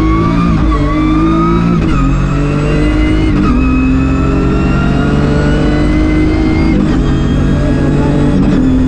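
BMW E36 M3 rally car's straight-six engine heard from inside the car, pulling hard under acceleration. Its pitch climbs steadily and is broken several times by gear changes.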